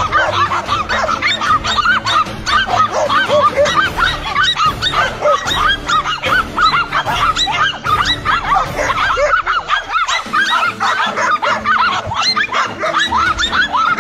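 Several dogs barking and yapping at a lizard they have cornered, in rapid, overlapping barks with no pause.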